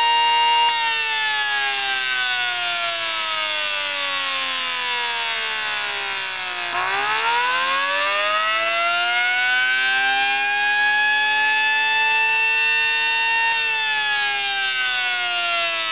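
Homemade electronic siren, a small motor's electrical noise amplified through a speaker, wailing with a tone whose pitch follows the motor's speed. It holds steady, winds down in a long falling glide slowed by a metal flywheel on the motor, winds back up over several seconds, then starts winding down again near the end.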